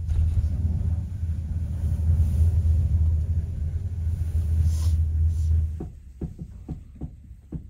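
Steady low rumble inside a moving gondola cabin running along its cable. About six seconds in the rumble drops away, leaving a few soft low thumps.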